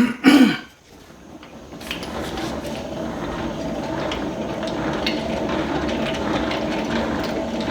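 Hand-cranked tangential honey extractor being spun up: a steady whirring rumble of the drum and crank gears that builds over the first couple of seconds and then holds.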